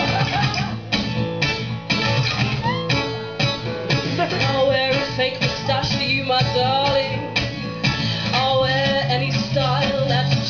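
Acoustic guitar strummed in a steady rhythm, with a woman's voice carrying a melody over it about halfway through and again near the end.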